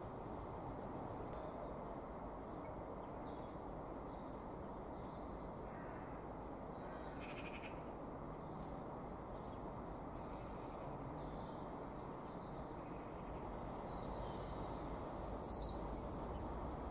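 Outdoor ambience: a steady low background rumble with faint, scattered bird chirps, and a few louder chirps near the end.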